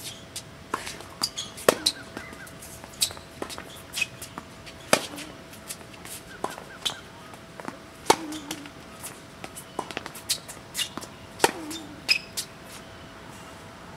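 Tennis rally on a hard court: a string of sharp racket strikes and ball bounces, some with a short ring after them, stopping a little before the end. A faint steady hum sits underneath.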